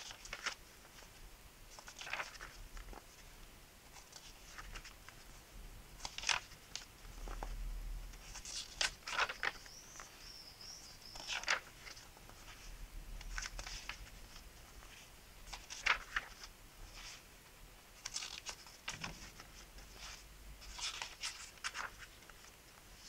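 Pages of a paperback book being turned by hand one after another: short papery rustles and swishes, about a dozen at uneven intervals.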